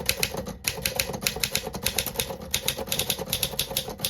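BlueBird (Torpedo-built) manual portable typewriter being typed on at speed: a quick, even run of typebar clacks against the platen, several strokes a second, with a short pause about half a second in.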